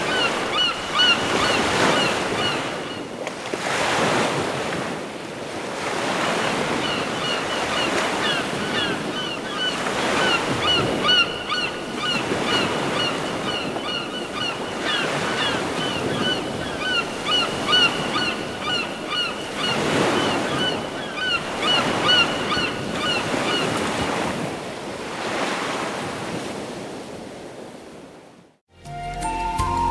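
Samsung Galaxy Stellar nature-sound ringtone of ocean surf with bird calls. Waves wash in about every two seconds under a steady run of short, repeated calls. The tone fades out near the end, and a new melodic tune starts just after.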